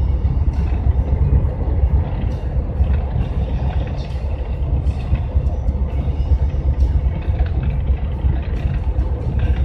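Steady low rumble of a GAZelle van's engine and tyre noise heard from inside the cab while driving at highway speed.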